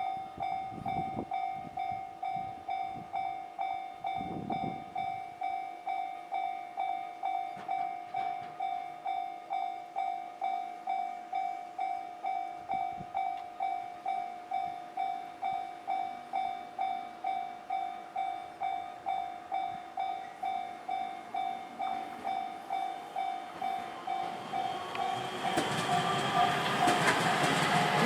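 Japanese railway level crossing's electronic warning bell ringing steadily, about two strikes a second. About 25 seconds in, an electric train arrives and runs over the crossing, its rumble and wheel noise rising over the bell.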